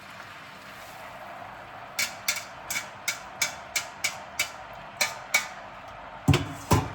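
A metal kitchen utensil clicking and tapping about three times a second while glass noodles are piled onto cooked vegetables, followed by two heavier knocks near the end.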